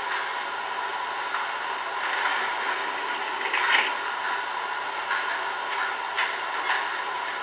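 MTH R40 subway model train making a steady mechanical running noise with light clatter, a little louder for brief moments about halfway through and again near the end.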